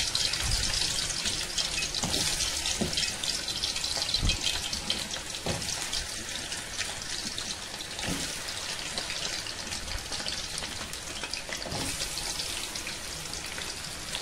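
Potato pieces frying in hot oil, a steady crackling sizzle, with a few low knocks now and then.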